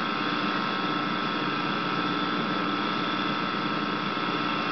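Steady electrical hum and hiss holding several fixed pitches, unchanging in level.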